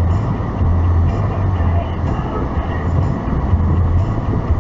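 Steady low rumble of a car on the road heard from inside the cabin, with a deep drone that swells and eases every second or so.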